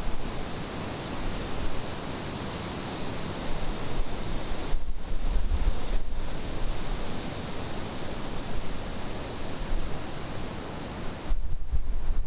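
Steady roar of the flooded Winooski River churning through rapids, with wind buffeting the microphone at times.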